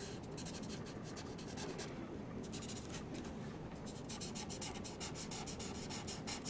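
Grayscale felt-tip marker rubbing across drawing paper in a run of quick, short strokes.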